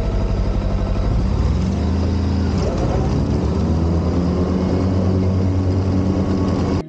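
Engine of a grass-cutting machine idling with an even pulse. About a second and a half in it revs up, then runs steadily at the higher speed, and it cuts off abruptly near the end.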